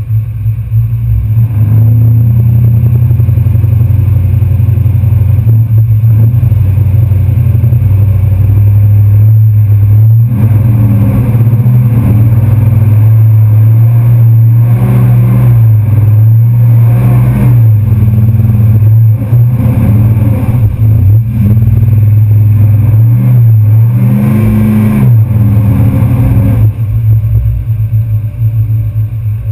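Off-road pickup truck engine running loud and revving, its pitch rising and falling repeatedly as the truck pushes through deep swamp water and mud, then easing off near the end.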